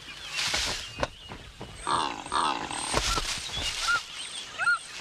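A secretary bird fighting a martial eagle: a rush of wingbeats and several sharp knocks of kicking blows, with harsh calls about two seconds in and short rising-and-falling chirps near the end.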